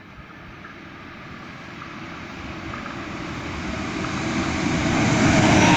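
BRB Alstom Coradia LINT diesel multiple unit approaching the station, its engine and wheel noise growing steadily louder as it nears.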